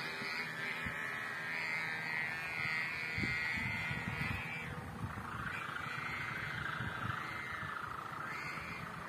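Kite hummers on the kites overhead droning in the wind: a continuous high buzzing hum whose pitch wavers up and down and sags a little past the middle. A few dull low bumps of wind on the microphone sit underneath.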